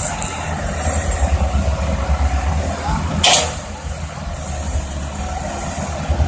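Heavy diesel engines of an excavator and dump truck running steadily with a deep rumble. A short hiss cuts in about three seconds in.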